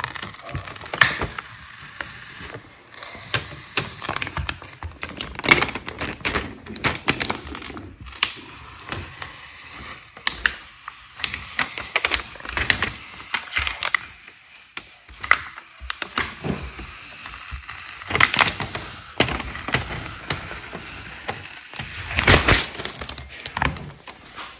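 Cut vinyl lettering on a clear gridded plastic sheet being peeled up and pressed down on a sticky cutting mat: crackling rips and small clicks in irregular bursts.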